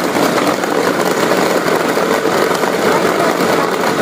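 Cosmos CB 802 electric chopper-blender motor running steadily on its high setting, the blades chopping meat in the chopper bowl.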